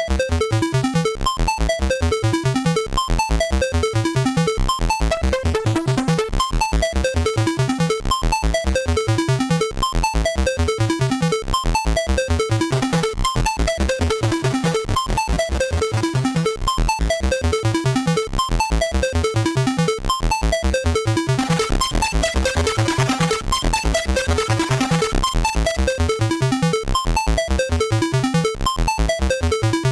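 Soulsby miniAtmegatron 8-bit synthesizer playing a fast, steady run of short repeating notes. About two-thirds of the way through, the sound turns brighter and noisier for a few seconds.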